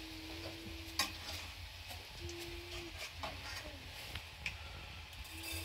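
Faint handling of a small glass jar with a plastic screw lid: a sharp click about a second in and a few light taps and scrapes as the lid is worked off. A low steady hum comes and goes three times.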